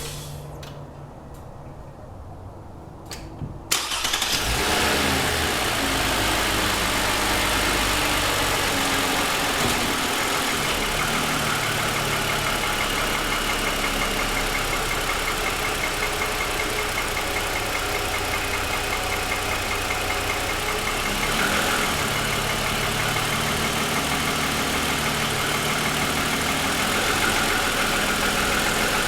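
A few faint clicks, then the 2007 Lexus ES350's 3.5-litre V6 starts about four seconds in and settles into a steady idle. The running engine carries the knock that the owner takes for piston slap, a defect he says shows for about ten minutes after a cold start.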